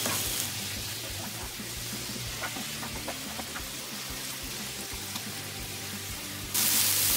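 Chunks of marinated chicken sizzling in olive oil in a nonstick griddle pan, with a few light clicks of a plastic spatula turning them, over soft background music. The sizzle gets suddenly louder near the end.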